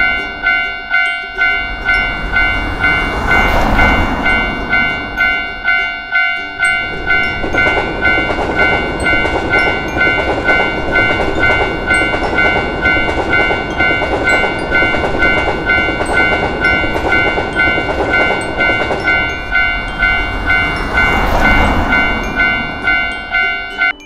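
Japanese level-crossing warning bell ringing in a fast, even ding-ding while an Enoden train passes over the crossing in the middle. The bell stops near the end.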